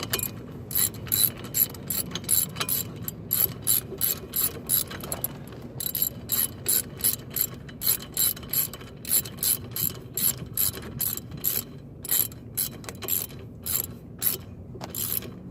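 Socket ratchet wrench clicking stroke after stroke, a few sharp clicks a second with short pauses between runs.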